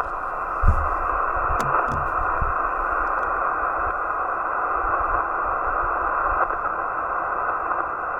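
Steady receiver hiss from the Yaesu FT-891 transceiver's speaker, thin and narrow in tone, on an empty HF voice frequency with no station heard. A few faint low thumps in the first couple of seconds.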